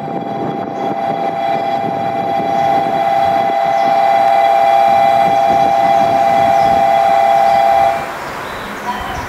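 Train horn held as one long steady two-pitch tone over the rumble of a moving train, growing louder and stopping sharply about eight seconds in.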